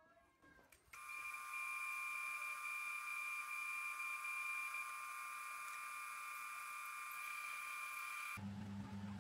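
Metal lathe running, a steady high-pitched whine that starts about a second in. Near the end it changes abruptly to a low hum.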